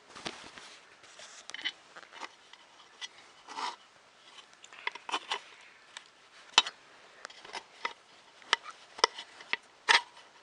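Small plastic and metal parts of a 3D printer kit being handled and fitted together: irregular light clicks, taps and short rubbing sounds, with a few sharper clicks in the second half.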